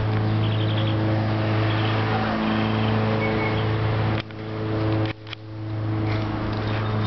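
A steady low mechanical hum at one fixed pitch. It cuts out abruptly about four seconds in and again just after five seconds, and each time it swells back.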